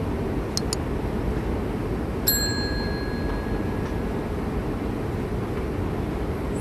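Two quick mouse clicks, then a single bright notification-bell ding about two seconds in that rings on and fades over a second or so, over the steady low rumble of a moving walkway.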